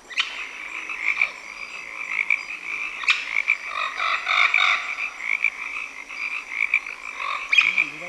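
Dense chorus of calling animals, a steady rapid pulsing with fainter high steady tones above it, and a few sharp clicks, one about three seconds in and one near the end.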